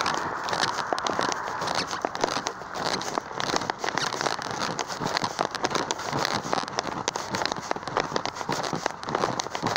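Flip-flop footsteps slapping on concrete at a walking pace, mixed with a dense crackle of handling and rubbing noise on the phone's microphone.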